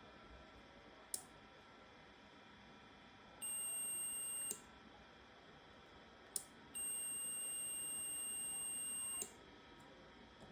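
Two steady, high electronic beep tones, the first about a second long and the second about two and a half seconds, with a few sharp clicks before and at the end of each.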